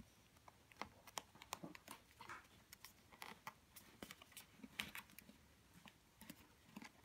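Faint, scattered light taps and paper rustles of fingers pressing folded cardstock corners flat against a table.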